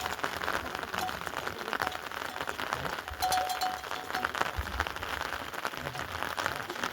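Heavy rain falling, a steady dense patter of many drops. About halfway through, a faint thin tone sounds briefly.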